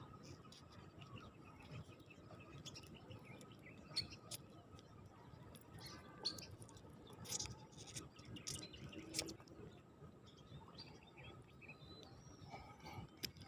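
Faint outdoor ambience with scattered short bird chirps and small clicks over a low hiss.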